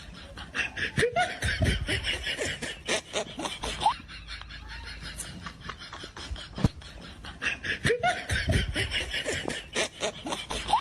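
Laughter in short bursts, livelier about a second in and again around eight seconds, quieter in between.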